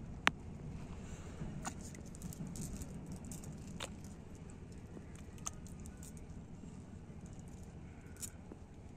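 A wet fishing net being handled as fish are picked from its mesh: scattered small clicks and taps over a steady low rumble, with one sharp click about a third of a second in.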